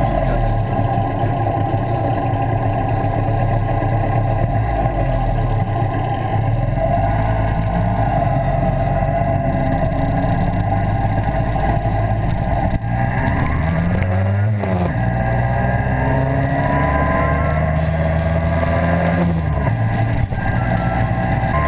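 Small two-stroke Babetta moped engine running under way, its note rising and falling with the throttle: a quick rise and fall about two-thirds of the way through, then a longer climb that drops off near the end.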